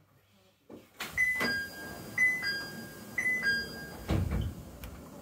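Hakone Tozan Cable Car's door chime at a station stop: a two-note falling chime sounds three times about a second apart, followed by a low thud as the doors work.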